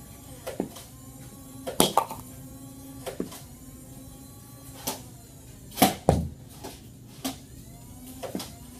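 Nerf Demolisher's electric flywheel motor humming while foam darts are fired: a string of sharp snaps, roughly one a second. The loudest snaps come a little under 2 s in and near 6 s, the latter with a dull thump.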